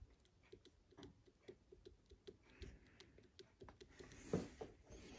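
Stuart S50 model steam mill engine running slowly on compressed air, giving a faint, even knock about three times a second that is traced to the piston. A brief louder rustle comes about four seconds in.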